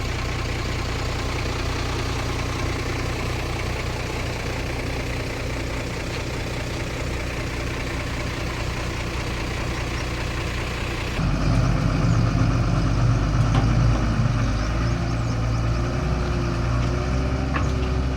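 Heavy diesel engine of an excavator running steadily. About eleven seconds in, the sound jumps abruptly to a louder engine note.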